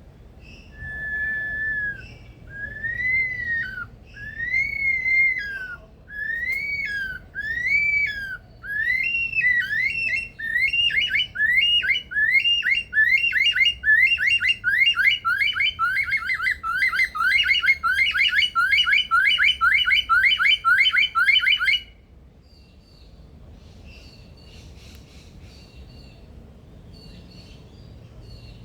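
Male superb lyrebird singing loud whistled notes, at first slow, separate slurred whistles, then speeding up into a rapid run of falling whistles, several a second, that cuts off abruptly. Softer, fainter chatter follows near the end.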